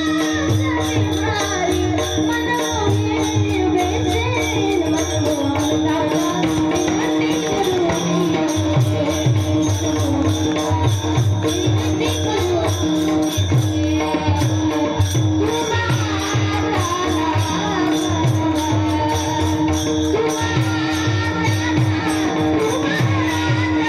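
Devotional bhajan music: a singing voice over a steady held drone, with mridang drum strokes and a fast, even metallic jingling beat.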